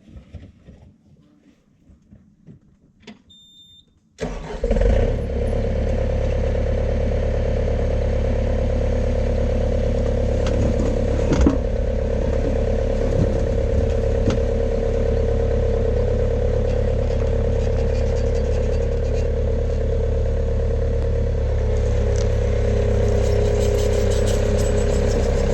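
Faint handling sounds, then about four seconds in a vehicle engine comes in suddenly and runs steadily at an even pitch.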